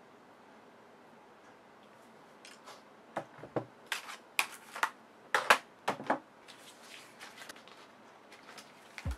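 Desk items being handled: a calculator, a phone and a notebook picked up and set down on a wooden desk. After a quiet couple of seconds, a run of sharp clicks and taps with softer rustling and handling noise between them.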